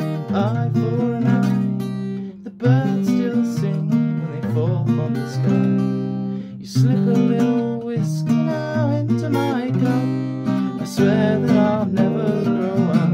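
Acoustic guitar strummed in steady chords, with a man's voice singing over it in places. The playing briefly drops off twice between phrases.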